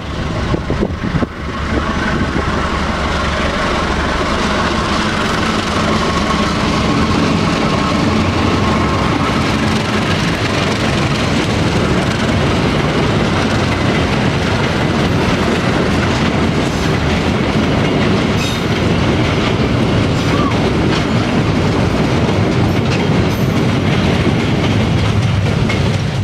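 A CC 201 diesel-electric locomotive (GE U18C) and its train of loaded ballast hopper wagons pass close by, engine running and wheels clacking over the rails. A steady high tone runs through about the first ten seconds.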